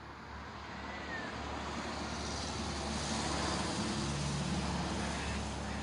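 A passing vehicle's rushing noise, swelling from about a second in and then holding.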